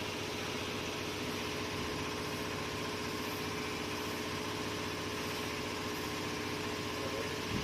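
Electric motor run by a freshly repaired variable-frequency drive on a test run: a steady hum with several pitched tones over an even hiss.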